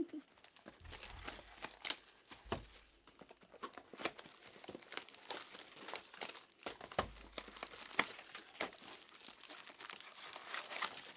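Foil trading-card pack wrappers crinkling and tearing as the packs and their cardboard box are handled by hand, in a steady run of small crackles and snaps.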